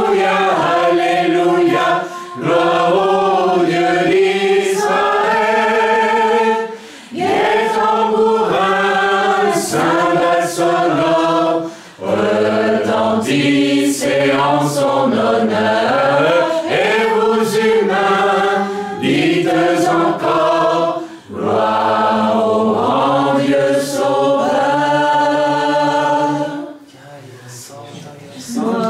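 A group of voices singing a slow worship song together, in long held phrases with short breaks between them, softer near the end.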